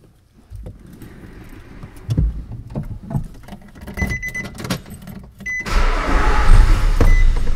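Keys and small handling clicks, and a repeating dashboard chime, then about five and a half seconds in the Nissan Xterra's 4.0-litre V6 is cranked and fires, running loudly on the fuel left in the lines because the fuel pump fuse is pulled to bleed off fuel pressure.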